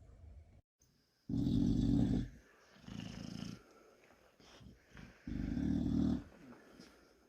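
Dog snoring in its sleep: three snores of about a second each, starting about a second in. The first and last are loud and the middle one is softer.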